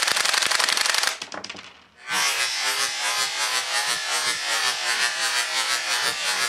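Marushin gas-operated UZI airsoft gun firing full auto, its bolt cycling and ejecting cartridges in a rapid rattle of shots. The burst stutters and dies out at about one to two seconds in, then a second burst starts at about two seconds and keeps cycling steadily.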